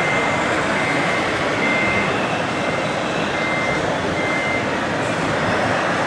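Reversing alarm beeping, a single tone repeated about once a second, from a radio-controlled scale construction model, stopping about four and a half seconds in. Under it runs a steady din of background noise.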